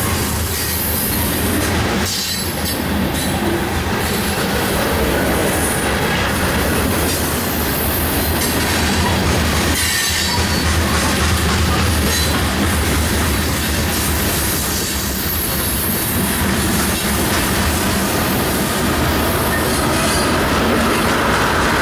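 Union Pacific freight train's tank cars and covered hopper cars rolling past close by: a steady, loud noise of steel wheels running on the rails.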